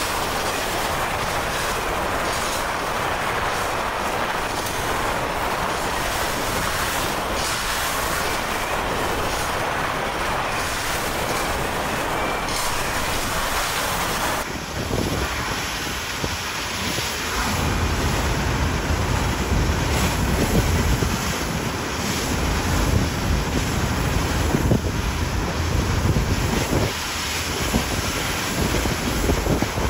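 A steady rushing noise, then after a cut about halfway through, gusty storm wind buffeting the phone's microphone with low, uneven rumbles.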